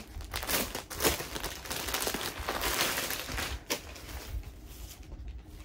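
Rustling and crinkling as folded suit fabric is handled and unfolded, with many small clicks and one sharp tick a little past the middle, growing fainter near the end.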